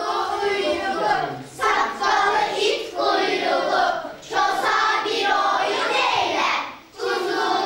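A group of children singing in unison, in phrases of about two and a half seconds with short breaks between them.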